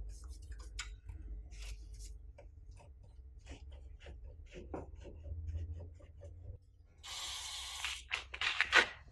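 Small metal clicks and knocks of hand tools being worked against a seized part on a car's rear subframe, over a low rumble. About seven seconds in comes a second of steady hiss, then a few louder scraping bursts near the end.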